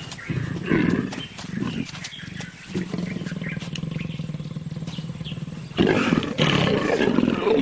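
Leopards growling while mating, a rasping, pulsed growl in uneven bouts that grows louder about six seconds in.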